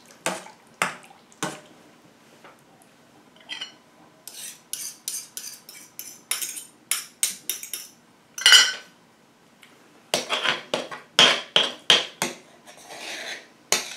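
A utensil stirring giblet gravy in a pot, clinking and tapping against the pot in quick runs. There is a louder scrape a little past halfway.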